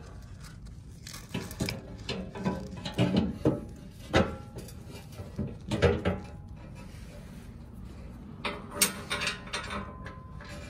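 Bash plate being fitted under a vehicle's underbody by hand: irregular knocks, clatters and scrapes as the plate is pushed up and shifted against the frame, with a cluster of knocks near the end.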